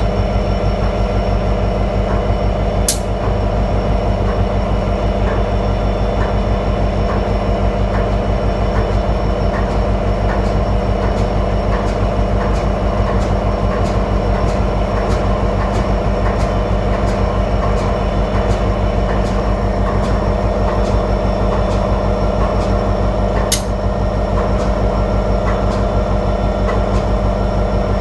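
Diesel freight train running past with a steady low engine drone, its wheels clicking evenly over the rail joints. There are two brief, sharp high-pitched ticks, one a few seconds in and one near the end.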